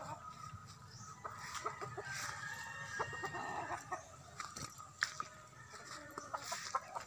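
Backyard chickens clucking, with a rooster crowing partway through and a sharp click about five seconds in.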